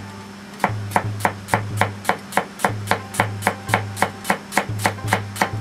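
Chef's knife slicing an onion on a plastic cutting board: a steady run of quick chops, about three or four a second, starting about half a second in.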